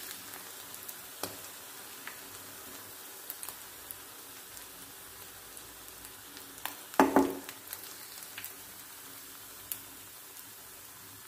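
Paneer fingers sizzling in shallow cooking oil in a frying pan, a steady hiss with scattered small pops. They are fried on both sides and being lifted out. About seven seconds in, the metal slotted spoon clatters against the pan.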